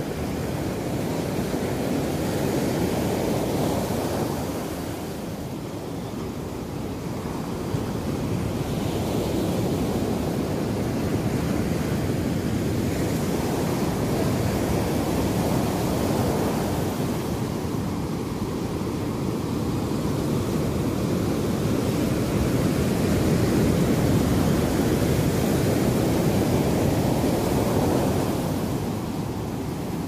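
Ocean surf breaking and washing up a sandy beach: a steady rush of waves that swells and eases, dipping about five seconds in and again near the end.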